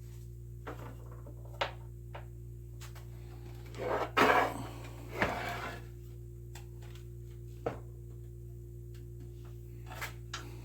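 Computer parts being handled on a workbench: a few sharp clicks and two short bursts of scraping and rustling about four and five seconds in, over a steady low electrical hum.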